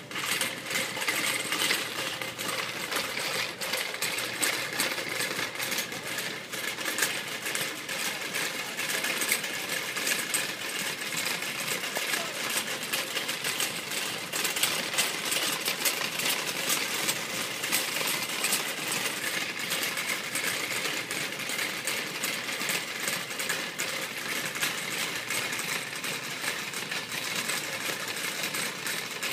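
Shopping cart rattling continuously as it is pushed across the store floor, a fast, even clatter of its wheels and wire basket.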